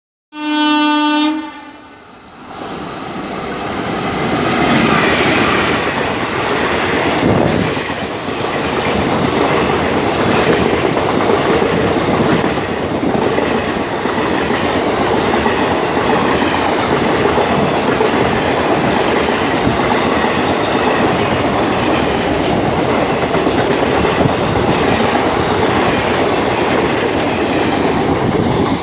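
An Indian Railways WAP-4 electric locomotive sounds its horn once for about a second as the express approaches. Then the locomotive and its coaches run through the station at speed without stopping, around 110 km/h, with a loud, steady roar of wheels on rail that holds as the coaches stream past.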